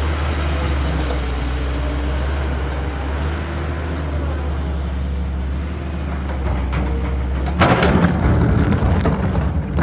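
Heavy diesel engine of a CAT excavator running steadily under load. Near the end comes a loud rushing clatter lasting about two seconds.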